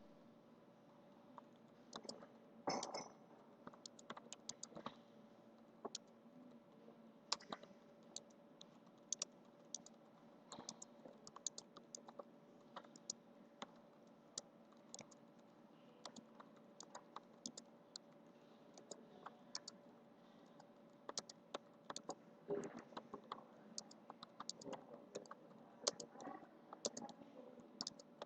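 Typing on a computer keyboard: a quick, uneven run of key clicks, several a second, over a faint steady hum.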